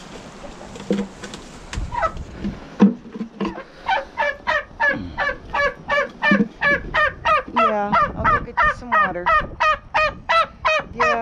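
Poultry calling: a few scattered short calls, then from about four seconds in a long run of short, harsh calls about three a second that grows louder toward the end.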